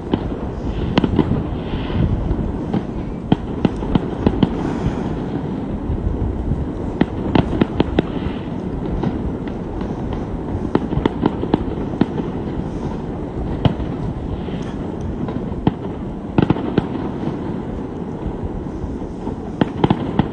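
Fireworks display going off: a quick, irregular run of sharp cracks and bangs over a steady low rumble.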